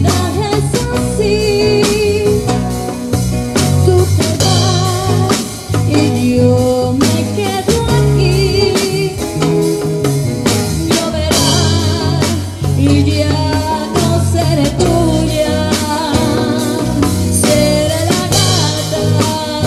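Live band playing a song: a woman sings lead with vibrato over an electric bass, acoustic guitar, bongos, and timbales with cymbals.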